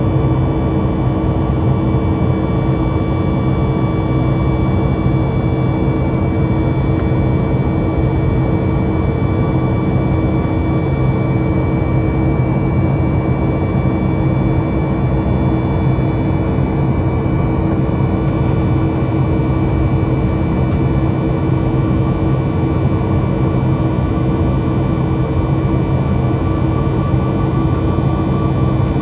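Boeing 737 MAX 9 cabin noise heard from a window seat beside its CFM LEAP-1B engine during the climb: a loud, steady jet rush with several constant humming tones, unchanging throughout.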